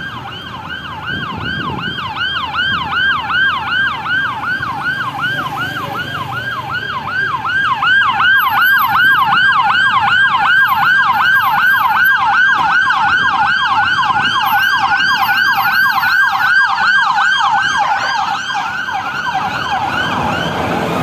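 Convoy escort vehicle's electronic siren in a rapid yelp, about three rising-and-falling sweeps a second, growing louder about eight seconds in, over low traffic rumble.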